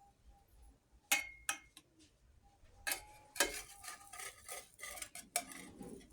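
A spatula clinking and scraping against a frying pan while flapjacks are turned and pressed. There are a few separate clicks, one ringing briefly about a second in, then a busier run of taps and scrapes from about halfway.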